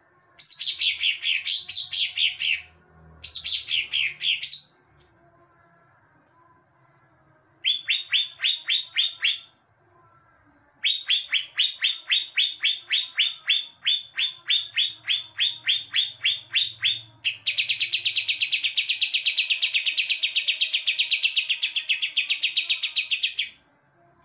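Caged green leafbird (cucak ijo) singing in bursts of fast repeated chirps, its song filled with mimicked house-sparrow calls. Two short bursts open, then after a pause longer runs of rapid chirps, ending in a faster continuous trill of about six seconds.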